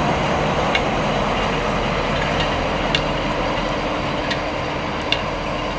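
SNCF BB 67300-class diesel locomotive moving slowly past at close range, its engine running with a steady hum that slowly fades. A few sharp clicks sound over it.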